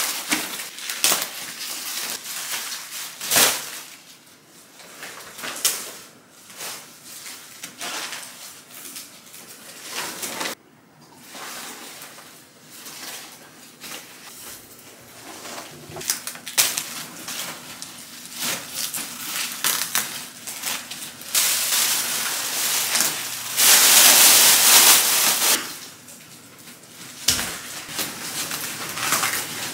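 Napa cabbages being trimmed by hand: outer leaves snapped and torn off the heads in crisp, irregular cracks, with rustling of leaves and plastic sheeting. A longer stretch of loud rustling comes about three-quarters of the way through.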